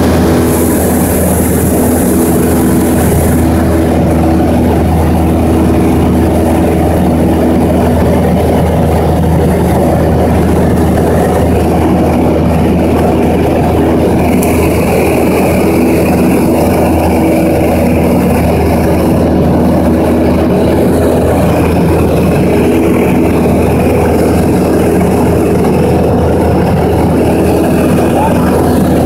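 Light aircraft's piston engine and propeller running steadily at cruise, heard from inside the cabin.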